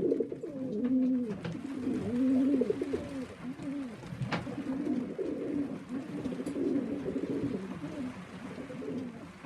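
Domestic pigeons cooing, a repeated rising-and-falling coo from more than one bird: a cock bird courting a hen as the birds are paired up. A single sharp click about four seconds in.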